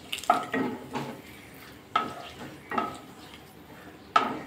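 Wooden spatula stirring dried red chillies and a bay leaf in hot mustard oil, knocking against the metal karai about five times, each knock ringing briefly, over a light sizzle of the oil.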